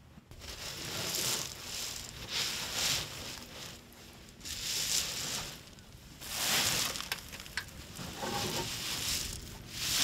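Manila clams being dug from wet mud: a hand tool scrapes and churns through mud and shells in repeated strokes, one every second or two.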